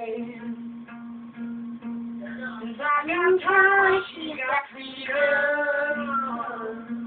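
A young boy singing a pop song with held notes, over guitar music.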